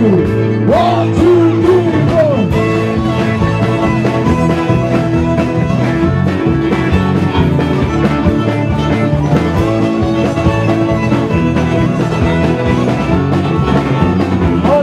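Live country band playing, with a bowed fiddle carrying the lead over the band and sliding between notes in the first couple of seconds.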